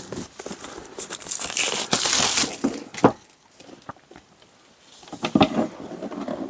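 Cellophane shrink-wrap being crinkled and torn off a box by hand, loudest in the first half, quieter for a couple of seconds in the middle, then crackling again.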